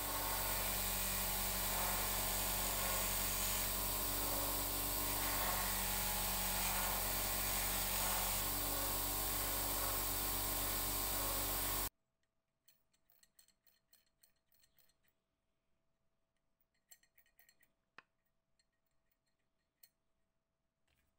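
Bench grinder fitted with a polishing wheel, running steadily while a small metal pin is held against the wheel: a steady motor hum under a hiss of metal rubbing on the wheel. The sound cuts off abruptly about twelve seconds in, leaving faint clicks of small metal parts being handled.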